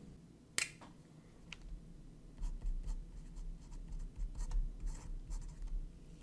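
A pen writing a signature on paper: a run of short scratchy strokes from about two and a half seconds in to near the end. A single sharp click comes about half a second in.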